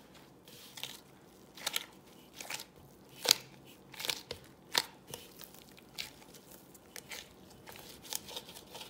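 Gloved hand kneading a stiff flour dough in a bowl: a run of short rustling, pressing strokes about once a second, the loudest about three seconds in.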